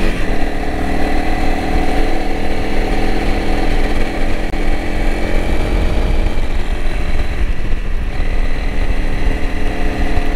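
Honda CRF300L Rally's single-cylinder four-stroke engine running at a steady cruise of about 30 mph, with no big revs or gear changes.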